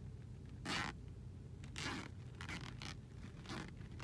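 Clear plastic poly bag crinkling and rustling in several short bursts as hands pull it open and slide the T-shirt out, over a faint steady low hum.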